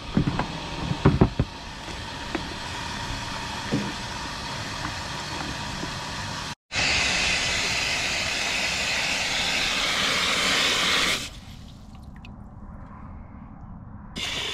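Water gushing from an automatic livestock waterer's float valve into its plastic trough as it fills: a loud, steady hiss that starts after a brief cut about halfway through and stops suddenly about four seconds later. Before it, a few knocks from hands working on the waterer's plastic housing.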